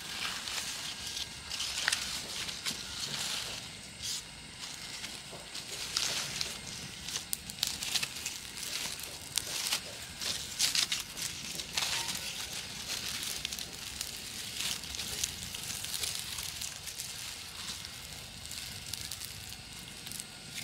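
A small wood fire being lit: dry leaves and thin kindling crackle irregularly as they catch, with rustling as dry leaves are handled and fed into the flame.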